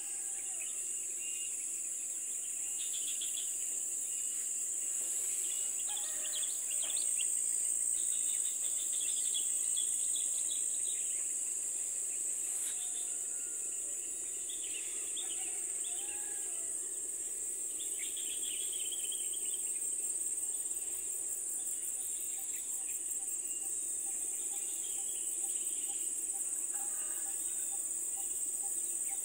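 Continuous high-pitched buzzing chorus of forest insects, with short bird chirps and calls coming and going over it.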